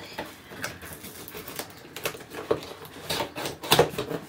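Fingernails picking at and peeling the tape seal of a cardboard box: scattered clicks, scratches and crackles, the loudest a little before the end.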